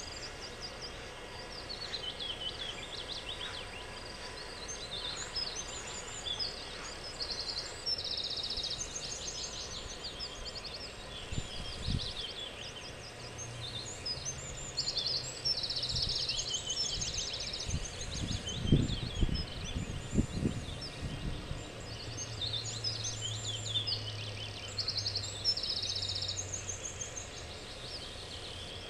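Several songbirds singing and chirping, with short fast trills repeating every few seconds. A low hum comes in during the second half, and a few low thumps sound around the middle.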